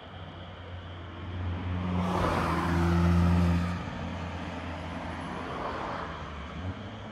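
A car passing by: engine hum and tyre hiss swell to a peak a couple of seconds in, then fade. A smaller swell of the same kind follows near the end.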